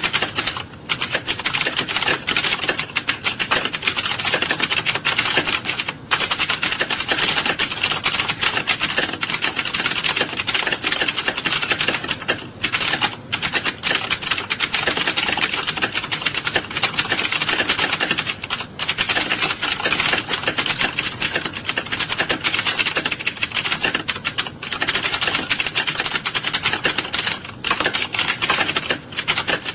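Many computer keyboards being typed on at once: a dense, continuous clatter of overlapping keystrokes from a roomful of typists, with a few brief lulls.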